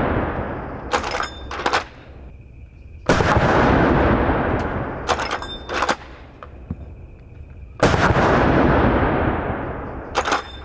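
Henry All-Weather lever-action .45-70 rifle fired twice, a few seconds apart, each a loud shot with a long rolling echo. Before each shot the lever is worked: two quick metallic clacks, the rifle being cycled for the next round.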